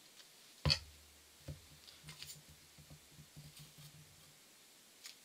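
A sharp knock on a wooden worktable about a second in, then a lighter knock and a run of faint taps and handling sounds as wood glue is spread with a small stick along balsa parts.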